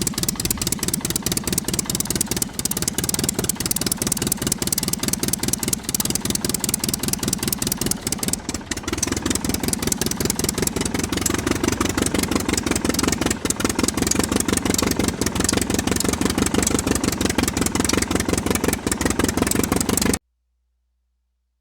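Small engine chugging steadily in fast, even beats, typical of the miniature diesel-style engine running the toy water pump, then cutting off abruptly near the end.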